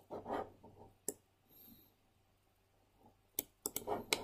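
Computer mouse clicking in a small room: a single sharp click about a second in and a quick run of three or four clicks near the end, with a soft rustle at the start.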